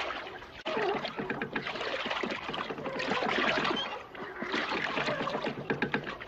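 Water pouring and splashing from the clay pots of a donkey-driven noria (wooden water wheel), with irregular knocks running through it.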